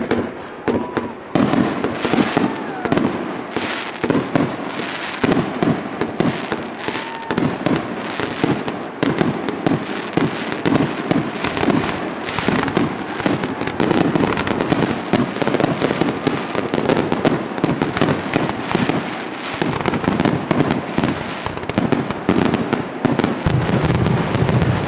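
Aerial fireworks display in a dense barrage: shell bursts and reports follow one another several a second without a break, the bangs overlapping into a continuous loud rattle of explosions.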